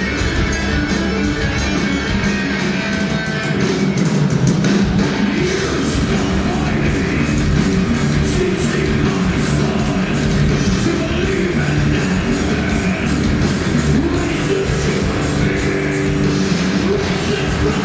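A heavy metal band playing live and loud: distorted electric guitar, bass guitar and drum kit with cymbals, drum hits driving a steady beat from about four seconds in.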